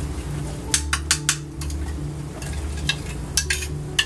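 Metal spoon stirring sauce in a small ceramic bowl, with a string of sharp clinks as it knocks against the rim and sides, over a low pulsing hum.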